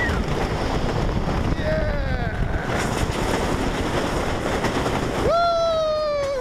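Wooden roller coaster train rumbling along its track into the station at the end of the ride, with wind on the microphone. A high voice whoops briefly about a second and a half in, then gives one long held whoop from about five seconds in that drops in pitch as it ends.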